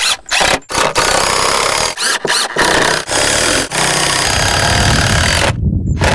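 DeWalt cordless impact driver driving a long screw into plywood, its motor whining and its hammer mechanism rattling under load. It runs in a few short bursts, then in one long run with brief pauses, and stops sharply about five and a half seconds in.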